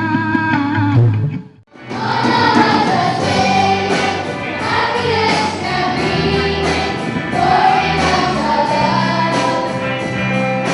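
Music with a drum beat that breaks off about two seconds in, followed by a choir singing a welcome song with instrumental accompaniment.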